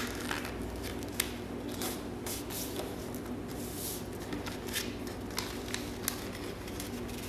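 Sheet of paper being folded and creased by hand, with short irregular rustles and crackles, over a faint steady low hum.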